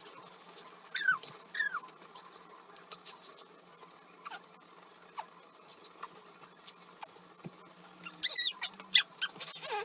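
An 8-month-old baby's vocal sounds: two short falling-pitch squeaks about a second in, then a loud, high-pitched squeal with wavering pitch and a further loud outburst near the end, over light tapping and rustling.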